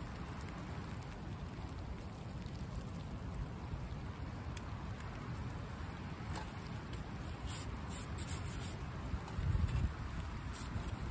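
Steady wind and rain noise outdoors, with gusts buffeting the microphone as a low rumble about nine seconds in, and a few light clicks in the second half.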